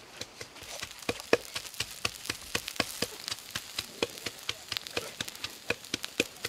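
Open wood fire crackling under a cooking pot: a steady hiss with sharp irregular pops and snaps several times a second.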